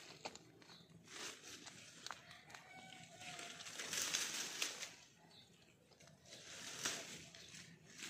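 Leafy wild bitter melon (ampalaya) vines rustling and crackling as a hand pulls and parts them, in several swells with small snaps; the loudest is about four seconds in.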